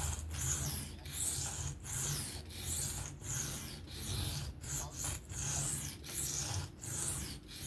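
A knife edge being stroked freehand across an Atoma 400 diamond sharpening plate, giving a rasping scrape on each pass. The strokes come in a steady back-and-forth rhythm, a little more than one a second.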